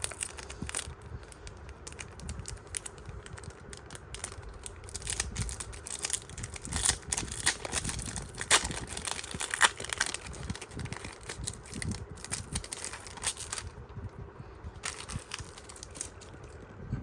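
Japanese Pokémon booster pack wrapper crinkling and tearing as it is opened, with the cards handled; a dense run of crackles in the middle eases off near the end.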